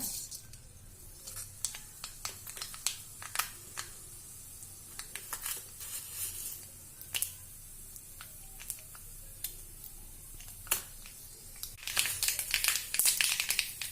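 Mustard seeds spluttering in hot coconut oil for a tempering. Scattered sharp pops come thicker and louder near the end as more seeds burst.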